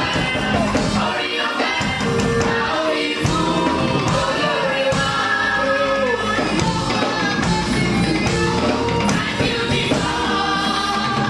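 Gospel church choir of women's voices singing into microphones, with a steady beat of instrumental accompaniment underneath.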